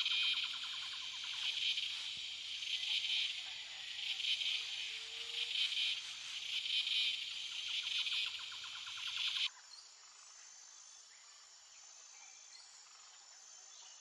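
Cicada song: a loud, high buzzing that swells and fades in waves about once a second, then cuts off suddenly about nine and a half seconds in.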